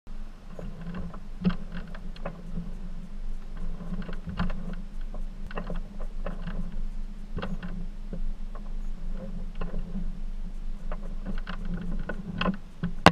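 Arched floating boat-garage canopy closing over a pontoon boat: irregular clicks and clunks from its frame, over a steady low hum.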